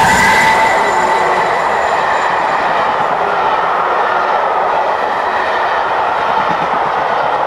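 Passenger coaches of a steam-hauled train running past at speed, a loud steady rush of wheels on rail. In the first second the tail of the locomotive's chime whistle, already dropped in pitch as the engine went by, fades out.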